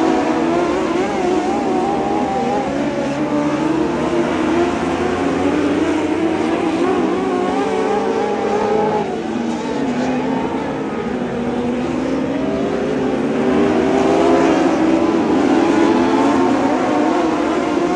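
A pack of dwarf race cars running laps on a dirt oval, several motorcycle-derived engines overlapping and rising and falling in pitch as the cars lift and accelerate through the turn. The sound swells later on as cars come past close.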